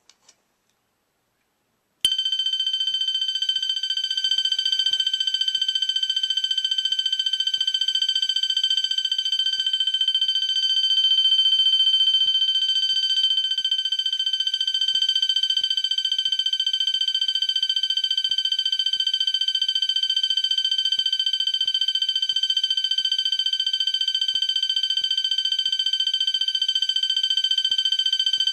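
Wheelock MT multi-tone fire alarm horn sounding one of its tones: a loud, steady, high-pitched electronic tone that comes on suddenly about two seconds in and holds without a break.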